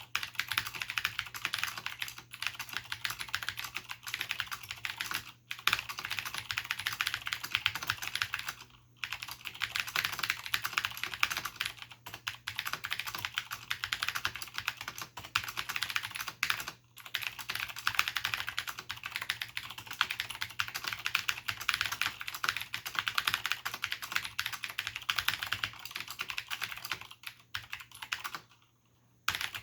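Fast, continuous typing on a Cherry G80-1813HFU keyboard with clicky Cherry MX Blue switches and Cherry doubleshot keycaps: a dense stream of key clicks. There are a few short pauses and a longer one near the end.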